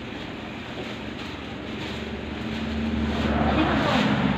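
A motor vehicle's engine running steadily, growing louder over the last couple of seconds as it comes closer.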